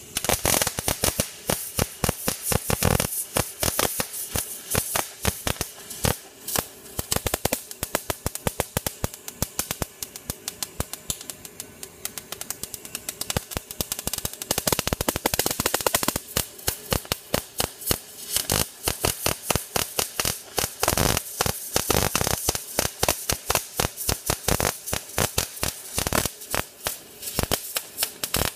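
MIG welding arc crackling as a bead is run, with the wire feed at 65 and the voltage at 5. The arc strikes right at the start. The sound shifts between a dense, even sizzle at the correct torch distance and more spaced, irregular popping where the torch is held too far away.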